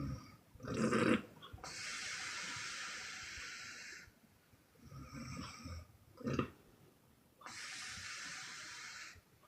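A sleeping person snoring with loud exhale puffing. There are two breath cycles, each a short low snore followed by a long hissing puff of breath out. The first snore, about a second in, is the loudest.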